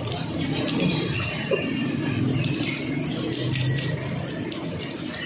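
Water running steadily, with a low hum and some rattling underneath.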